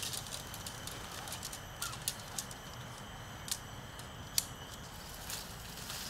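Tent pole sections clicking and knocking together as the poles are fitted and handled: about eight sharp, uneven clicks, the loudest about four and a half seconds in.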